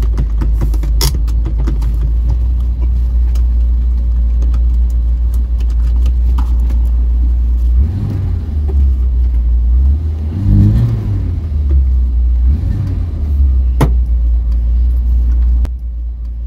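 Vauxhall Viva HC's four-cylinder engine idling, heard from inside the cabin, blipped up and back down three times in the middle. The sound drops suddenly near the end.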